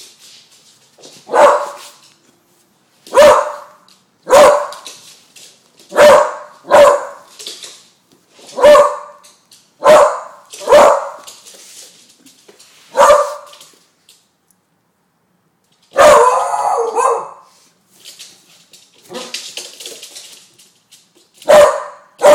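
Young beagle barking in single sharp barks, about ten of them spaced a second or two apart, with a pause and then one longer, noisier sound about two-thirds of the way through. The barks are fearful barks at balloons on the floor.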